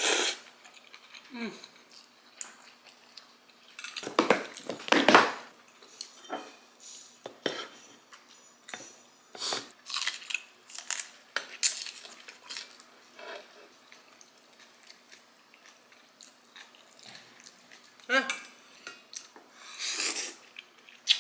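Mouth sounds of eating: noodles slurped in bursts, the loudest about four to five seconds in and again near the end, with chewing in between. Metal chopsticks clink against a stainless steel bowl.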